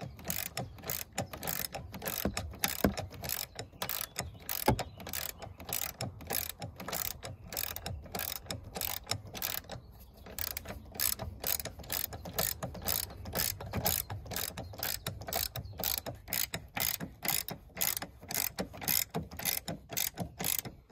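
Socket ratchet wrench clicking in quick, even strokes, about three a second, with a short break about halfway through, as a nut on a car's upper engine mount is run down and snugged up before being torqued.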